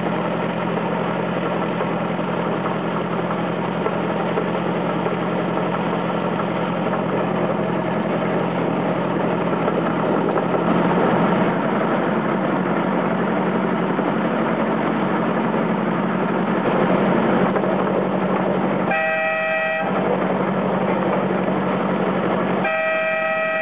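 Small engine of a ride-on miniature railroad locomotive running steadily as it travels along the track. Near the end its horn sounds twice in short toots.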